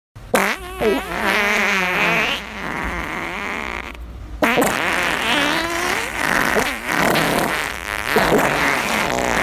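Long, drawn-out fart sound effects that wobble in pitch. The first starts sharply after a moment of dead silence and runs to about four seconds in. After a brief drop, a second starts abruptly and runs on.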